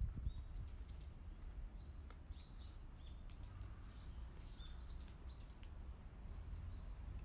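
Birds chirping: about a dozen short, high calls in quick succession, stopping a little past the middle, over a low steady rumble.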